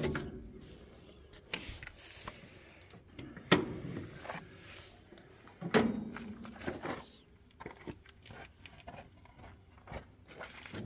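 Scattered sharp metal clicks and knocks of hand work on a hay baler while its grease fittings are being greased, the loudest about three and a half seconds in and again just before six seconds.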